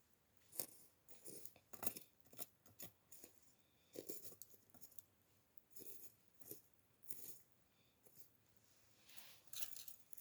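Wood fire being stirred: glowing embers and charcoal are raked apart to let air in and revive the flames. The sound is faint, irregular clicks, clinks and short scrapes, with a longer hissing scrape near the end.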